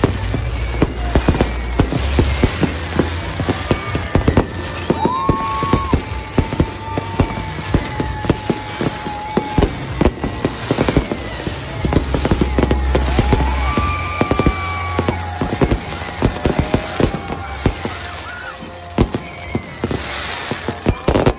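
Fireworks going off in quick succession: many sharp bangs and crackles, with music playing underneath.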